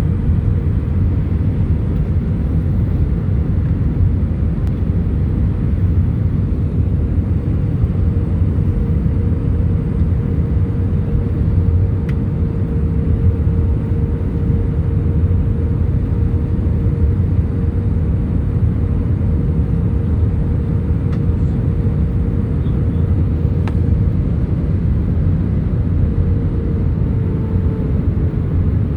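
Jet airliner cabin noise during landing: a steady low rumble of engines and airflow with a steady whine over it that drops in pitch near the end.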